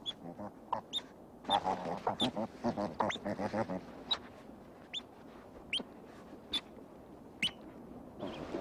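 River otter pups squeaking and chirping in the den: sharp, high chirps about once a second, with a busy run of lower, wavering squeals from about one and a half to four seconds in.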